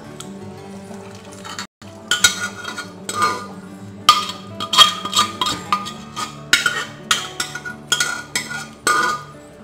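A metal utensil knocking and scraping against a steel pot in quick clusters, each knock ringing briefly, as cooked dal is emptied out into the pan; the knocks start about two seconds in. Soft background music underneath.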